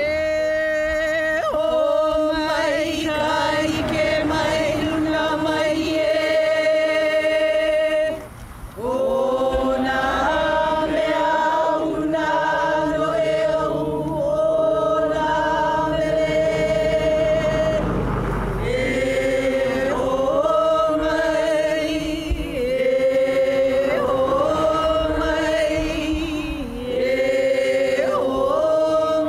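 A group of people singing together in long held notes, the voices moving in unison, with short pauses for breath about eight and eighteen seconds in.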